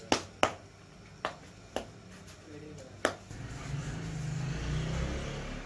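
Naan dough being divided into balls by hand on a floured counter: five sharp slaps over about three seconds as pieces are pinched off and set down. Then a low steady hum grows in the background.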